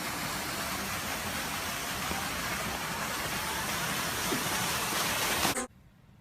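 A steady rushing hiss of noise that starts abruptly, swells slightly, and cuts off suddenly after about five and a half seconds.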